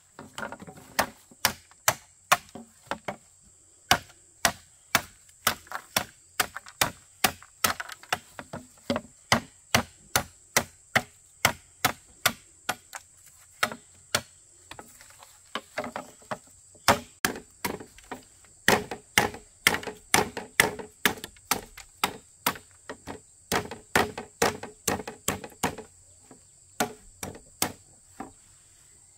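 Steady chopping strikes, about two a second, with a few short pauses.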